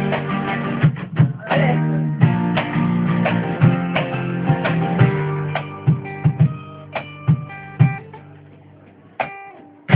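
Live rock band playing the instrumental close of a song: strummed guitars over bass and drum hits, fading away over the last few seconds.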